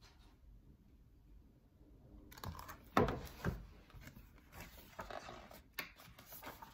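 Hardcover picture book being handled and a page turned: paper rustling with two sharp knocks about three seconds in, after a near-silent start.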